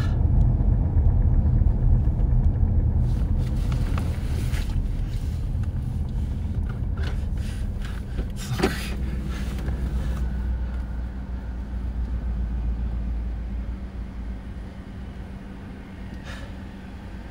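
Car cabin rumble of engine and road noise while driving, with a few light clicks and rustles; the rumble dies down near the end as the car slows.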